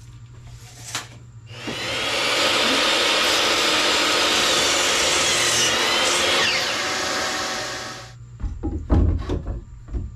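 Electric miter saw running and cutting through a driftwood board for about six seconds, its whine falling as the blade winds down. A few wooden knocks follow near the end as the cut boards are handled.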